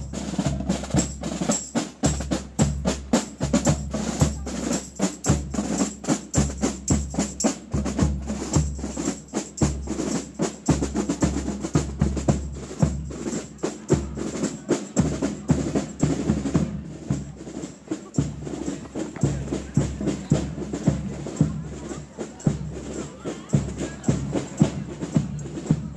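Marching band's snare and bass drums beating a steady march rhythm as the band passes. The drumming grows fainter about two-thirds of the way through.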